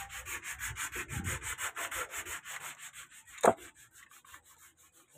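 Rapid, evenly repeated scraping strokes that fade out about three seconds in, followed by one sharp knock about three and a half seconds in.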